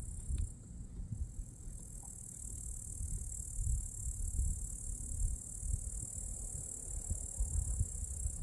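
Wind rumbling on the microphone, over a steady high-pitched hiss of insects chirping in the grass.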